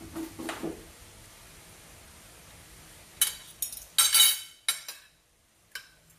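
Kitchen utensils clattering and clinking against dishes: a quick cluster of sharp knocks with a bright ring about three seconds in, then one more single knock near the end.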